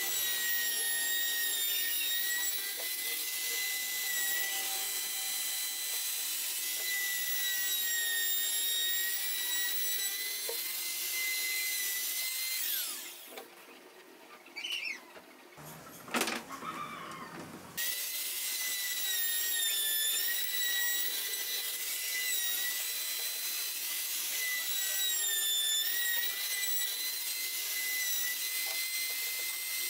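Hand-held trim router running with a steady high-pitched whine, its pitch dipping briefly as the chamfer bit cuts along the edges of MDF strips. A little under halfway through it spins down, there is a quieter pause with a single knock, and then it is running again.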